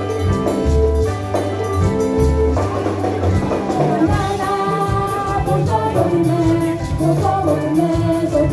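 Live Ghanaian frafra gospel band playing an upbeat song: a steady bass line and beat, with voices singing over them, the singing strongest in the second half.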